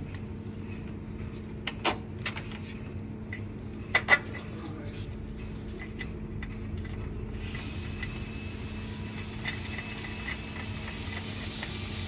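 Metal clinks and knocks from handling the starter-motor cables and fittings under a truck, the loudest a pair of knocks about four seconds in, over a steady low hum. A steady hiss builds in about halfway through.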